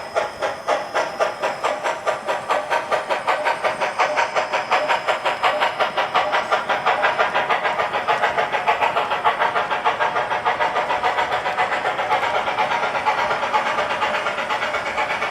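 S gauge model train running on DCC, a steady rhythmic pulsing of about three to four beats a second that gradually quickens and blurs together near the end, with a faint high whine early on.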